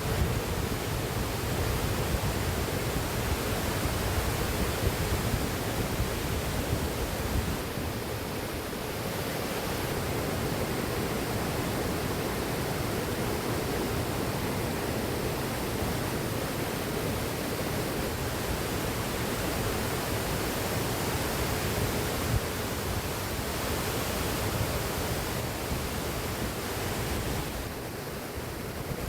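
Floodwater rushing steadily out through the opened spillway gates of the Lower Manair Dam, a continuous wash of heavy falling water.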